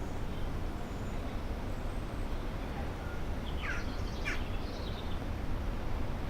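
A bird gives two quick chirps, each sweeping downward in pitch, a little over halfway through, over a steady low rumble.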